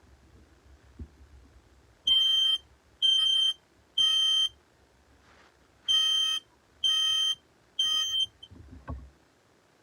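Smoke alarm sounding on test: a high-pitched beep in two rounds of three with a pause between, the temporal-three evacuation pattern. A low thump follows near the end.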